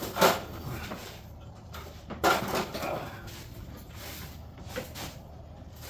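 Metal hand tools and parts being handled and set down: two louder clunks with a short clatter after each, about a quarter second in and about two seconds in, and a few lighter clicks between and near the end.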